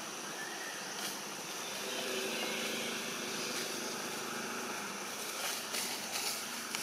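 Steady outdoor ambience among trees: an even hiss with a faint high insect drone, and a few soft clicks in the last couple of seconds.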